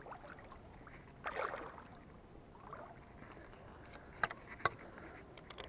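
Water splashing and sloshing as a hooked bream is drawn into a landing net at the water's surface, the strongest splash a little over a second in. Two sharp clicks follow about four seconds in.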